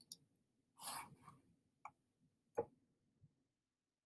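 Near silence: room tone with a few faint, brief clicks and a short soft hiss like a breath.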